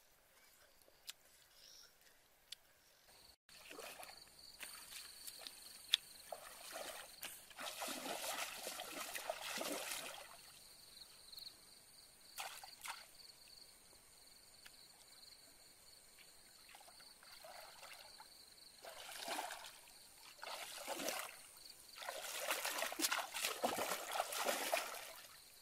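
Shallow creek water splashing and sloshing around someone wading in it, in several bursts, the longest and loudest near the end. A thin, steady high tone runs beneath it.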